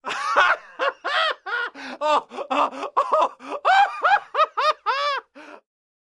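A person laughing: a quick run of short, high-pitched laugh syllables, about four or five a second, lasting about five and a half seconds and then stopping.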